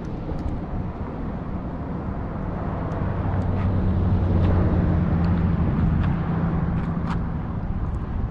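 A motor passing by: a low engine hum swells through the middle and then fades, over steady outdoor noise with a few light clicks.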